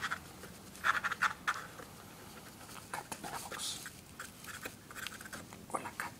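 Scratching and rustling on a cardboard shoebox lined with tissue paper: a few short bursts about a second in, then lighter scattered scratches and taps.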